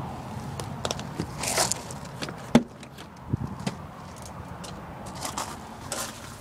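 Handling noises: a string of clicks and knocks, the sharpest about two and a half seconds in, with short rustles, ending with papers being picked up from the seat.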